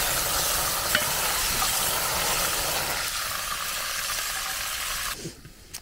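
Chopped meat frying with a loud sizzle in a cast-iron pan over an open wood fire, stirred and scraped with a wooden spatula. The sizzle thins out about three seconds in and falls away shortly before the end.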